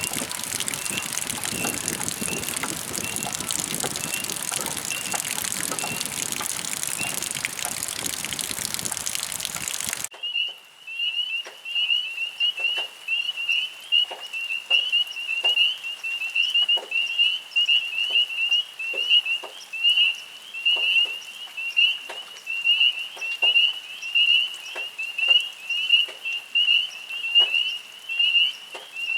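Steady rain for about ten seconds, then a sudden change to frogs calling: rapid repeated chirps at one high pitch, with faint clicks beneath.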